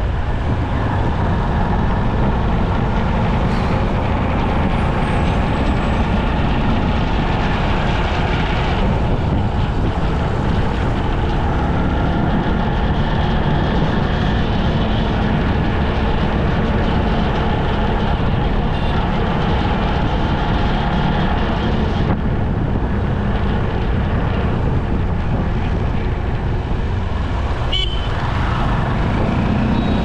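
Steady road traffic noise heard from a vehicle moving through city streets: engine and tyre rumble from close buses and traffic, with a short high beep near the end.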